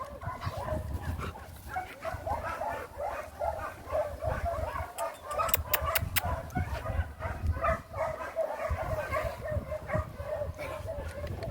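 Dogs barking and yipping, a dense run of short calls several times a second, with a few sharp clicks about halfway through.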